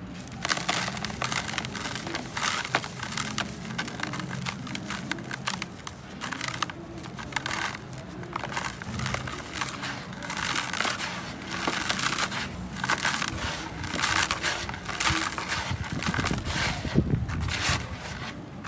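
Hands digging into and squeezing dry, crumbly red dirt in a tub. It sounds like a dense, gritty crunching made of many tiny crackles, growing louder and softer in waves as the hands press and break up the clumps.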